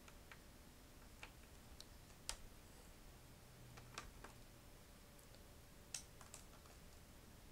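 Faint, scattered small clicks and taps, about half a dozen, from a small Phillips screwdriver and tiny screws being worked out of a laptop's plastic screen bezel, against near silence.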